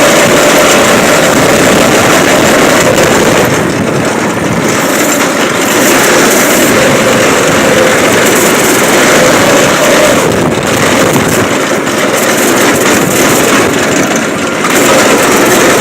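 Predator 212cc single-cylinder four-stroke engine of a go-kart running under load while the kart is driven, its pitch wavering with the throttle and easing off briefly three times.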